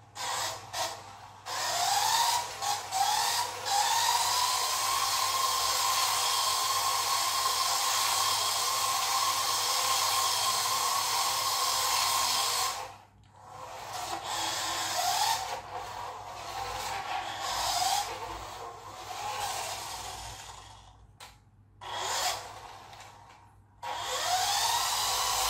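Toy-grade RC car's small electric drive motor and gears whining as it drives, powered by 14500 lithium-ion cells in place of AA batteries. A few short bursts at first, then the whine rises as it speeds up into a long steady run of about ten seconds that cuts off suddenly, followed by stop-start bursts and another steady run near the end.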